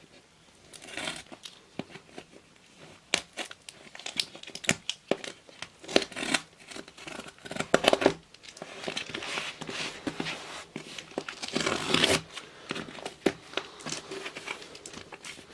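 A thin parcel being torn open by hand: irregular tearing and crinkling of the packaging with many sharp cracks and rustles, louder in stretches near the middle and about three-quarters through.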